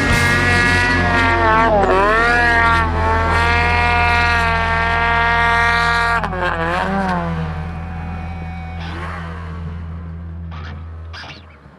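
Snowmobile's two-stroke engine running at high revs in deep powder. The pitch dips sharply and climbs back twice, about 2 and 6 seconds in, as the throttle is eased and reapplied, then the sound fades after about 8 seconds.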